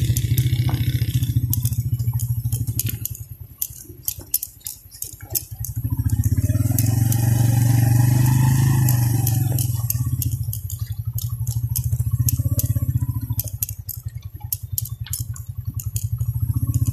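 Motorcycle engine running while riding over a rough, stony dirt track. The engine eases off twice and picks up again, with many sharp clicks and rattles as the bike jolts over the rocks.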